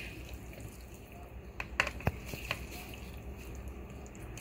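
Wet chickpea chaat being tossed with two plastic serving spoons in a bowl: soft squelching of the dressed chickpeas and vegetables, with a few light clicks of the spoons against the bowl around the middle.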